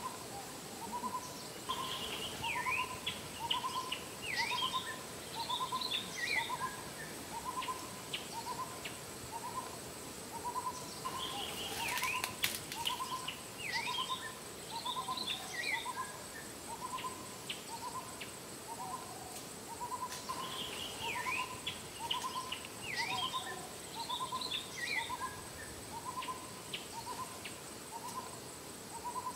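Birds calling: a short hoot-like note repeated about once a second, with bursts of higher chirps and whistles every several seconds. A steady high insect-like whine runs underneath, and there are a few brief clicks about twelve seconds in.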